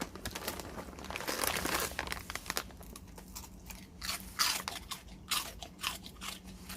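A dog chewing Saeukkang shrimp crackers, a run of quick, crisp crunches with short pauses between bites.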